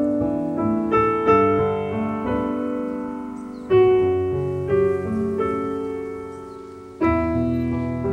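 Background music: slow solo piano, chords struck every second or two and left to ring and fade.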